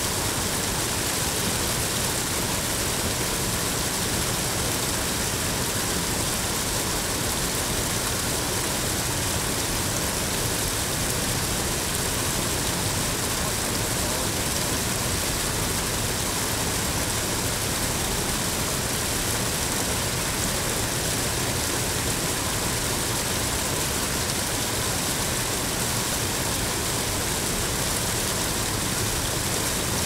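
Steady, even rush of falling water, unchanging throughout.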